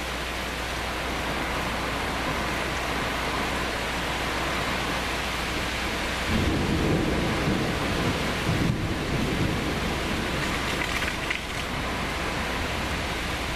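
Steady rain falling. About six seconds in, thunder breaks into a low rolling rumble that lasts about five seconds and then fades back under the rain.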